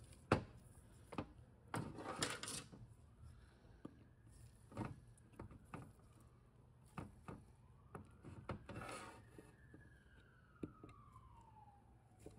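Scattered light clicks and taps with a few short scraping rubs as a Volkswagen 01M/01P valve body is handled and worked with a pick at its valve bores. A faint tone slowly rises and falls in the background.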